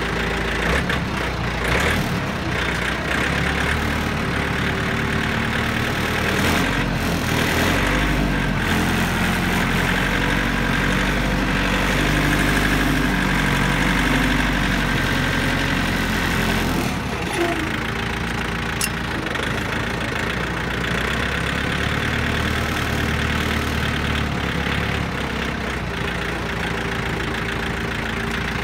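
John Deere compact tractor's engine running while the tractor drives and carries a loaded front-end loader bucket. The engine note rises and falls through the first half, then settles to a steadier note for the rest.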